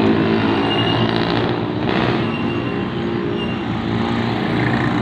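A motor vehicle engine running steadily close by, over the general noise of street traffic.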